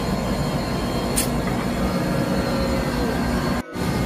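Steady low rumble and hum of a tanker's onboard machinery, with a thin high whine over it and a faint click about a second in. The sound cuts out for a moment near the end.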